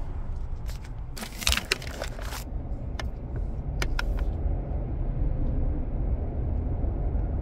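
Steady low rumble inside a car creeping in traffic, with rustling and scraping of a hand-held phone being shifted about a second in, then a few sharp clicks from handling around three to four seconds in.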